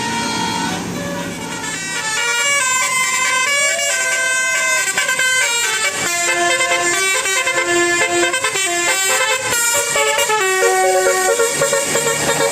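Bus 'telolet' basuri musical horn playing a tune: several tones sounding together, stepping quickly from note to note.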